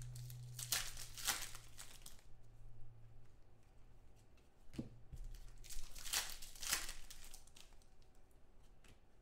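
Foil trading-card pack wrapper crinkling and tearing as hands open it, in two rustling bursts, about a second in and again around six seconds in, with a light click in between.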